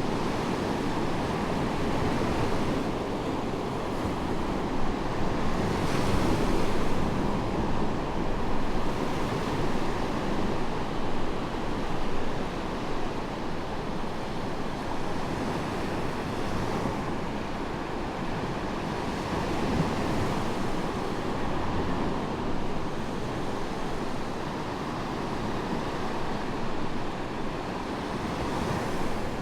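Medium sea waves breaking and washing onto a sandy beach, a continuous surf wash that swells with each breaker, the strongest a few seconds in.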